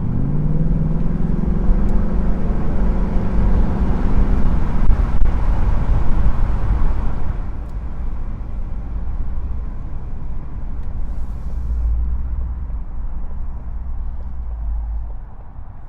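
Ford Mustang GT's 5.0-litre naturally aspirated V8 pulling away, its pitch rising and then holding for about seven seconds, with the active-valve exhaust in normal mode. The car then eases off, leaving a lower, quieter rumble from the engine and road.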